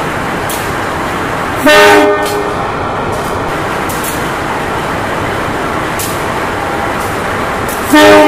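Diesel-electric locomotive (CC 203) running with a steady engine noise as it closes in slowly to couple onto a passenger train, sounding two short horn toots, one about two seconds in and one near the end.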